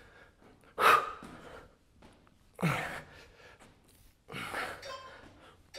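A man breathing out hard three times, about every two seconds, one breath carrying a short grunt: exertion breathing during a high-knee exercise.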